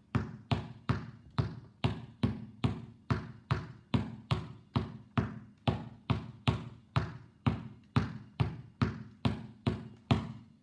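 Basketball dribbled on a hard indoor floor in a steady rhythm of about two and a half bounces a second, each bounce ringing briefly. The bouncing stops just before the end.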